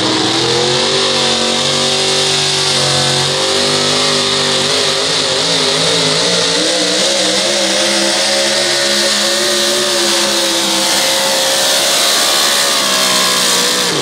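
Supercharged four-wheel-drive pulling truck engine at full throttle, dragging the pulling sled. The revs climb in the first second, waver up and down for a few seconds mid-pull, then hold high and steady through to a full pull.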